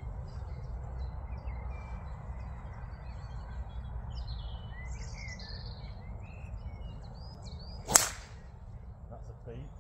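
A driver striking a golf ball off the tee: one sharp crack about eight seconds in, over a steady low background rumble with birds chirping.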